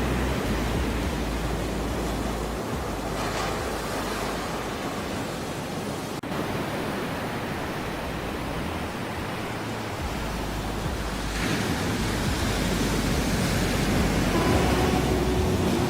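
Ocean surf: a continuous wash of breaking waves that eases off in the middle and swells up again toward the end.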